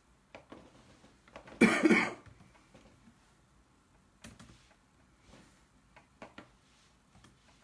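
A single cough about one and a half seconds in, then faint, scattered clicks of typing.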